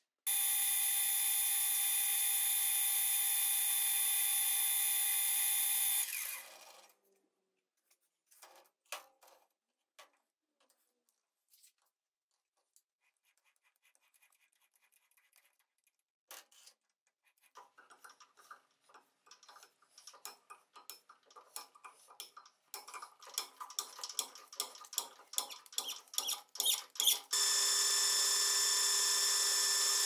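A machine motor runs steadily for about six seconds and stops. About twenty seconds of small metal clicks, taps and rattles follow as tooling is set up on a metal lathe, growing busier. The lathe starts up again about three seconds before the end.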